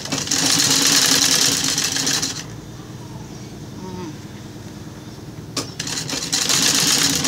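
Sewing machine stitching fabric strips onto a rug backing in two runs: it runs for about two seconds, stops, then starts up again about six seconds in.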